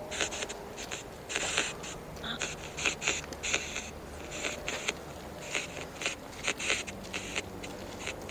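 Footsteps crunching on dry dirt and gravel: short, uneven scrapes about twice a second.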